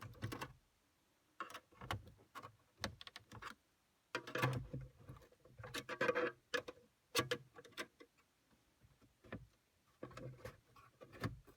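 Irregular clicks, taps and knocks of a car stereo head unit's casing being handled and pried open, in scattered bursts with a busier stretch in the middle.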